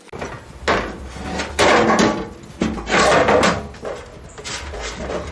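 Plastic lawn-mower hood being handled and fitted onto a steel go-kart frame: a run of irregular hollow knocks, scrapes and rattles.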